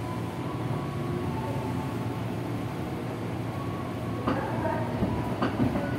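Inside a JR 205-series electric commuter motor car under way: steady traction-motor whine over the rumble of the wheels on the rails. In the second half the wheels knock over rail joints a few times.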